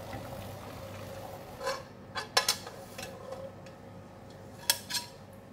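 Cookware clinking: a metal plate-lifting clip and lid knocking against a stainless steel steamer pot and its plate, about four sharp clicks. The loudest are a quick pair about two and a half seconds in and one near the end, over a faint steady background.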